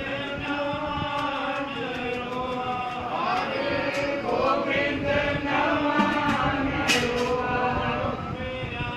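A group of voices chanting together in sustained, overlapping lines. A few sharp clicks come about seven seconds in.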